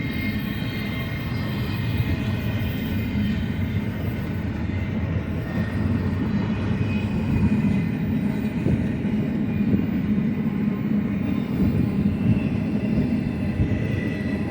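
Freight train cars rolling past: a steady rumble of wheels on the rails, with faint high ringing tones above it.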